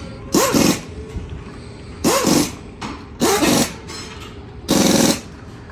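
A dog barking in short, separate barks, three of them a second or more apart. A harsher half-second burst comes near the end.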